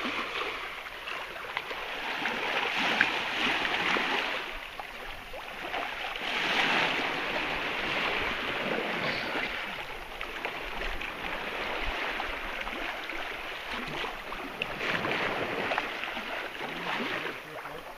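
Water rushing and swishing along the hull of a sailing yacht under way, swelling and fading every few seconds as it moves through the swell.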